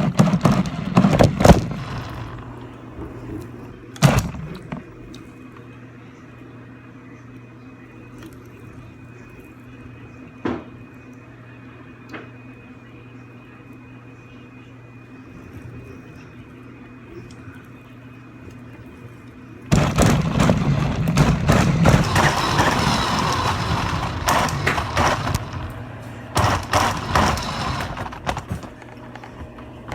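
RC car driven at speed along a hallway, its motor and tyres running in short bursts with sharp knocks as it hits bumps. There is one brief run at the start, single knocks now and then, and a longer loud run in the last third.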